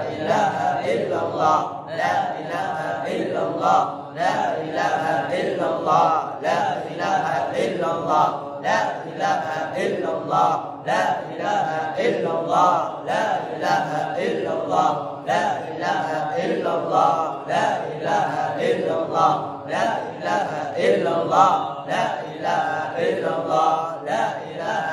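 A man's voice chanting Qur'an recitation in Arabic into a microphone, in a long melodic flowing line broken by brief pauses every few seconds.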